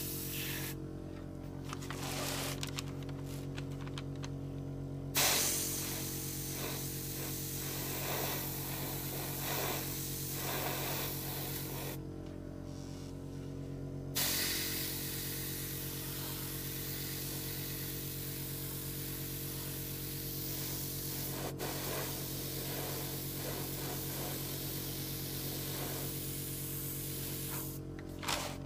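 Gravity-feed airbrush spraying paint: a hiss that starts and stops, with brief pauses early on and a gap of about two seconds in the middle, over a steady low hum.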